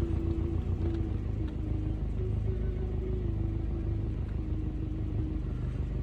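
A vehicle running: a steady low rumble with a faint droning tone above it.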